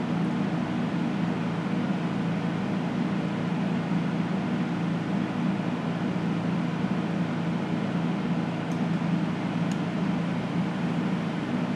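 American Beauty 105-05 resistance soldering unit humming steadily while its large plier electrodes pass current through a board standoff, melting preformed solder rings into a fillet.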